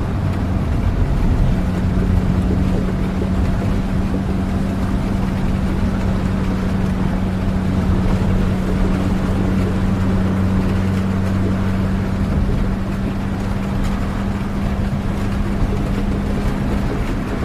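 Steady rain with a constant low engine hum underneath, as heard from inside a moving vehicle during a trip. The deepest part of the hum drops away about two-thirds of the way through.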